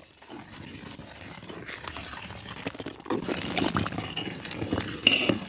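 A large pot of milk payasam cooking: liquid splashing and bubbling as a stream of water is poured in and the mixture is stirred, with many small crackles, louder in the second half.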